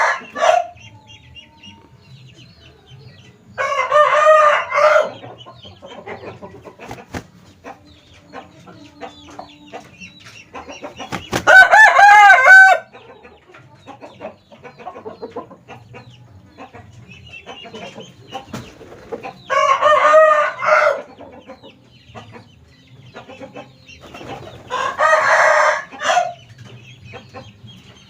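Bangkok fighting roosters crowing: four long crows, several seconds apart, with soft clucking and small rustles between them.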